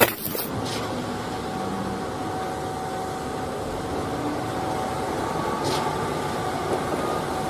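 Steady running noise of MAN concrete mixer trucks' diesel engines in street traffic, an even rumble with a faint steady hum.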